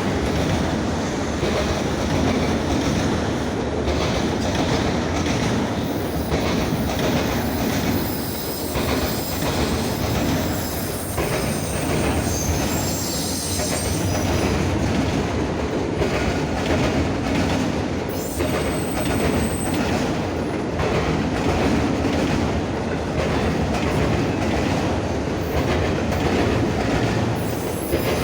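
Norfolk Southern freight train rolling past, a steady rumble of cars with wheels clicking over rail joints. Thin, high wheel squeals come in about a third of the way through and again past the middle.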